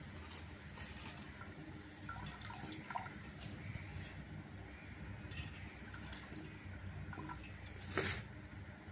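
Soaked rice being scooped by hand from a bowl of water and dropped into a pot of liquid, with water dripping and splashing; a louder splash about eight seconds in.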